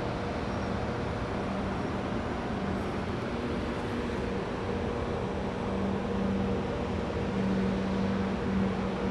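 Steady city noise from the streets far below: a continuous rush of distant traffic with a constant low hum running through it.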